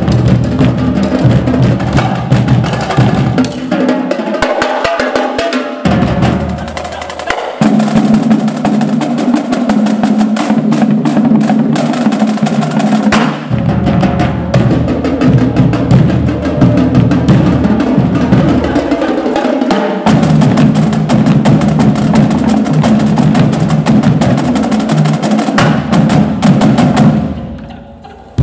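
Marching drumline playing: snare drums with fast stick rolls over tenor drums and a line of tuned bass drums whose low hits move between pitches. The playing drops away briefly near the end.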